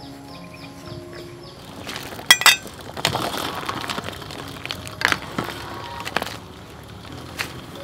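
A metal ladle stirring snails in their shells and vegetables in a pot of boiling soup, with shells and ladle clacking against the metal pot. Two sharp clacks come about two and a half seconds in, then a stretch of bubbling and stirring with a few more single knocks.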